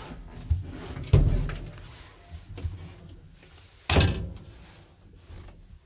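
Doors of a 1960s ZUD passenger lift being handled: two loud clunks, about a second and about four seconds in, with lighter knocks and a low rumble between them.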